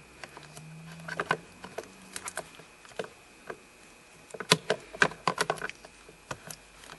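Plastic glove-box trim piece of a 2008 Toyota Highlander being handled and pressed into place: a scatter of irregular clicks and light knocks, with a busier run of them a little past the middle.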